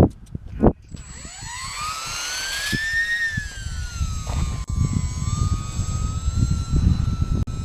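E-flite UMX P-51 BL's small brushless electric motor and propeller spinning up under throttle for takeoff: a whine that climbs in pitch from about a second in, peaks near three seconds, then holds as a steady high whine. Gusty wind rumbles on the microphone throughout, with two short knocks near the start.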